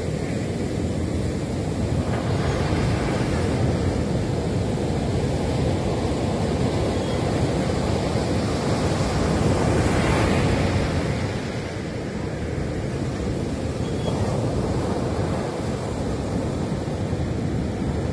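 Ocean surf breaking and washing up a sandy beach, a continuous rush that builds to its loudest about ten seconds in as a wave breaks along the shore, then eases and swells again.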